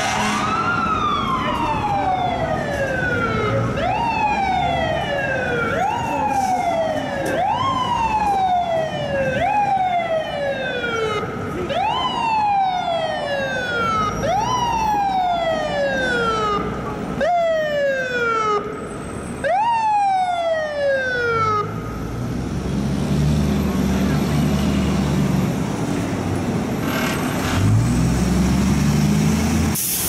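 Fire truck siren sounded in repeated bursts, each rising quickly and falling away over a second or two, about one every two seconds; it stops about 22 seconds in. After it the truck's diesel engine runs and revs up as the truck pulls past.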